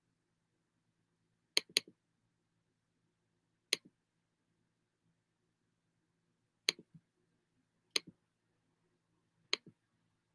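Computer mouse clicking: about six sharp clicks at irregular intervals, the first two in a quick pair, each followed by a softer release click.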